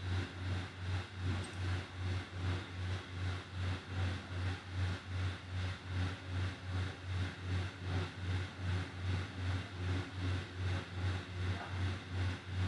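A low droning hum that throbs evenly about three times a second, with a faint hiss above it.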